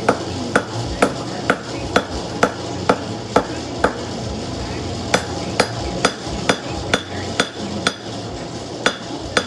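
Hand hammer blows on hot steel on a post anvil while forging a knife blade, with a ringing strike about twice a second. There is a run of about nine blows, a short pause, then about seven more and a couple of last strikes, over a steady background noise.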